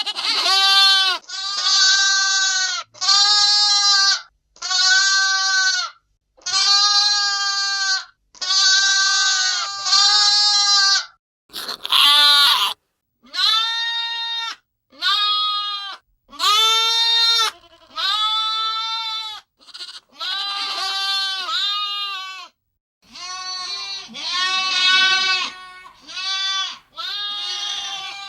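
Baby lambs bleating over and over: a run of separate high calls, each about a second long with short pauses between, one harsher and noisier call near the middle.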